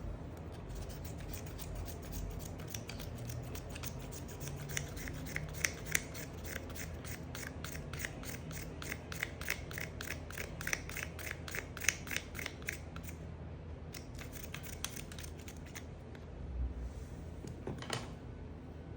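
Soap being cut: a fast, even run of crisp crackling clicks, about five a second, that stops about two-thirds of the way through, with one more click near the end.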